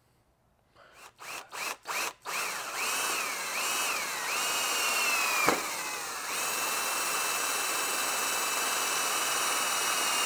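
Cordless drill boring a bolt hole through a metal frame tube by hand. It starts with a few short trigger blips, then runs with a steady whine that sags in pitch under load several times, gives a knock about five and a half seconds in, and then runs evenly.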